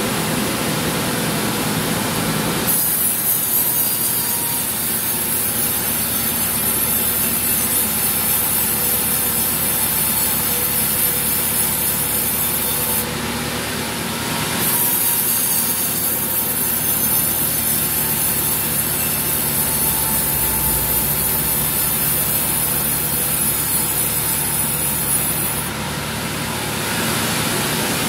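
Large sawmill band saw running steadily and cutting teak: the blade's high, hissing rasp through the wood comes in two long cuts, the first starting about three seconds in and the second following a short break, ending a couple of seconds before the end.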